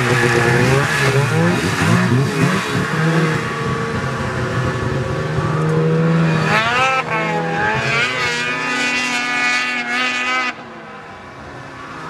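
Snowmobile engine running close by and revving as the sled pulls away across the snow, its pitch climbing sharply about seven seconds in. The engine sound drops away abruptly about ten and a half seconds in.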